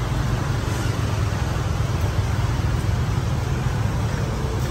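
Steady low rumble of street traffic with an even hiss over it.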